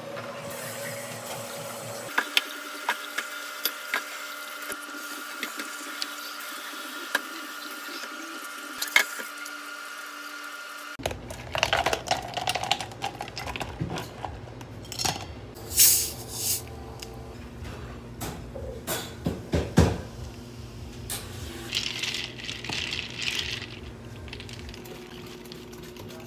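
Cafe counter work sounds across several cuts. In the first part, light clicks and knocks sound over a steady machine hum. After about eleven seconds come louder irregular clatters and knocks of cups and utensils, with a brief hiss near the end.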